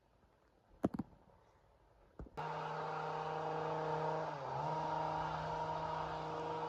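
Chainsaw engine running steadily with a high, even pitch, cutting in abruptly about two and a half seconds in after a near-quiet stretch broken by a few sharp clicks; its pitch dips briefly and recovers about two seconds later.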